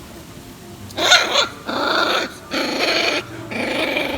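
Kombai puppy growling: a short high yelp about a second in, then three rough growls in a row, showing aggression.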